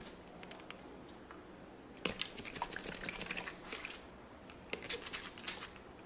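Faint, quick runs of light taps and clicks, like typing on a keyboard, from a barber's fingers working on a seated man's head. One spell of about two seconds starts about two seconds in, and a shorter spell comes near the end.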